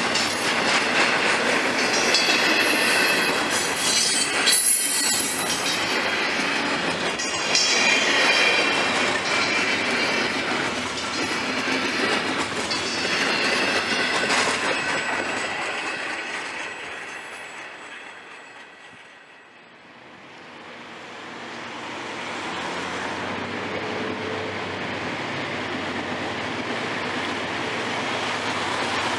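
Double-stack intermodal freight train's well cars rolling past close by, steel wheels squealing high over the rumble of the cars. About two-thirds through the sound fades away, then the lower rumble of an approaching CSX diesel freight locomotive builds up again.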